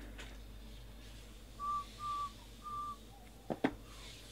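Person whistling three short, level notes of a tune, then a lower one, followed by two sharp knocks near the end.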